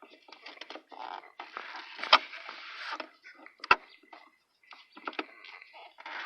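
Rustling and scraping of hands working the brake light switch and its wiring under a pickup's dashboard, with two sharp plastic clicks about two seconds in and again a second and a half later.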